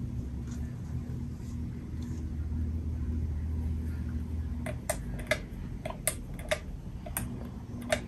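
Hampton Bay Wellston ceiling fan running with a steady low hum. In the second half comes a run of sharp, irregular clicks.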